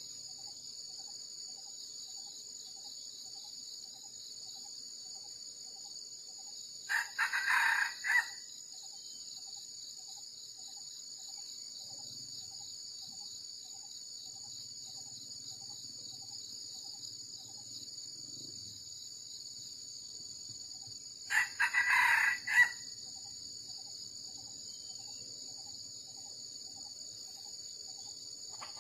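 Red junglefowl rooster crowing twice, about fourteen seconds apart, each crow about a second and a half long, over a steady high drone of insects.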